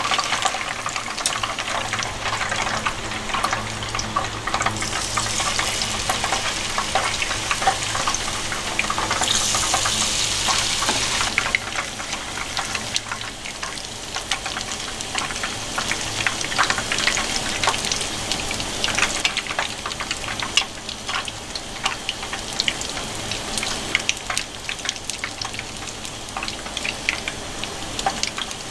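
Battered leaves deep-frying in a pan of hot oil: a steady sizzle with dense crackling pops, which grows louder and brighter for several seconds about five seconds in.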